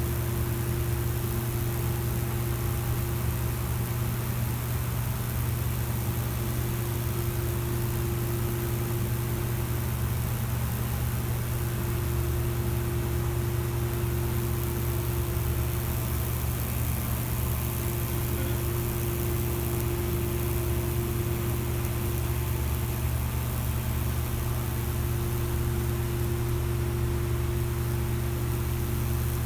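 Microwave oven transformer buzzing steadily at high voltage while it burns a Lichtenberg fractal pattern into wood, a low mains hum with a continuous hiss over it.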